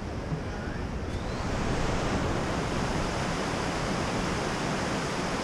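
Steady rush of a rocky mountain stream tumbling over stones, growing louder about a second and a half in.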